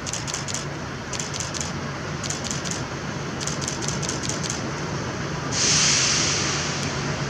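Lyd1 narrow-gauge diesel locomotive approaching, its engine running as a steady low hum. Short clusters of quick high ticks repeat about once a second. About five and a half seconds in, a loud hiss starts suddenly and fades.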